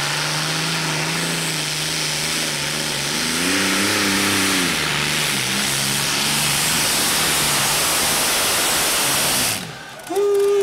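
Multi-turbine pulling tractor with Isotov TV2 helicopter turbines running on a pull: a loud steady roar with a strong high hiss and a low tone that rises and falls again about four seconds in. Near the end it cuts off abruptly and a different steady held tone starts.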